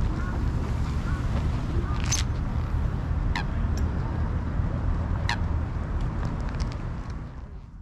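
Waterfowl calling, with a few short sharp calls about two, three and a half and five seconds in, over a steady low rumble.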